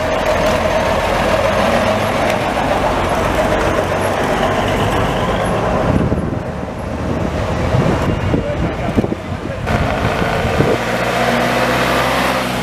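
Engines of vintage buses driving past: first a large red bus towing a trailer goes by close, then about eleven seconds in a smaller old bus's engine comes in with a low, steady hum.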